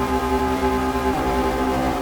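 Synthesizer tones run through the Glitchmachines Subvert distortion plugin: a sustained, gritty chord over a heavy low drone, changing pitch about a second in.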